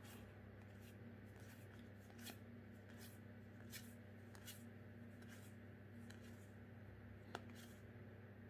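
Faint handling of Magic: The Gathering trading cards as they are slid one at a time off the front of a held stack, giving soft, scattered flicks, with a sharper tick about seven seconds in. A low steady hum runs underneath.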